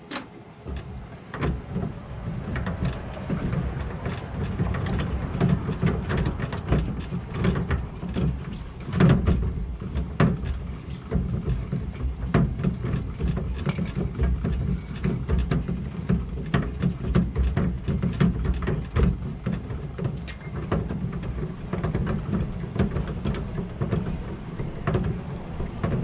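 Spare-tire hoist under a 2009–2014 Ford F-150 being cranked up with the jack rod: continuous rapid clicking and rattling from the winch and rod over a low rumble, as the steel cable is wound back in.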